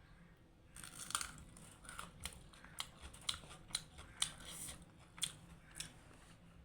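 A person chewing and eating close to the microphone: wet mouth clicks and smacks coming irregularly, starting about a second in.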